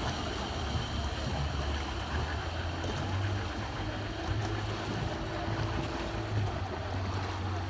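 Motorboat engine running, a steady low drone, with wind on the microphone.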